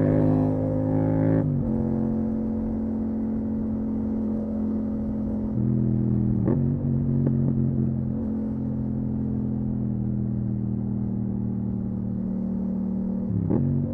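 Yamaha MT-07's parallel-twin engine through a full Akrapovic titanium exhaust, running at steady cruising revs. The pitch drops about a second and a half in as revs fall, and there is a short sharp click near the middle and another near the end.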